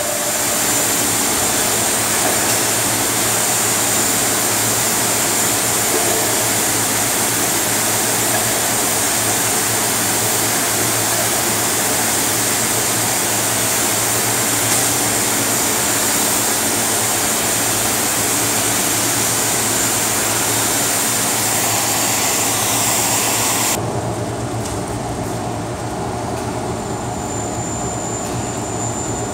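Loud, steady hiss of a cutting torch on a track-mounted carriage. It shuts off abruptly about 24 seconds in, leaving a low hum.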